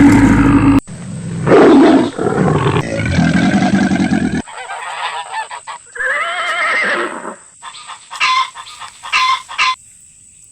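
Geese honking: a series of loud, harsh honks, a wavering call in the middle, and a few short honks near the end.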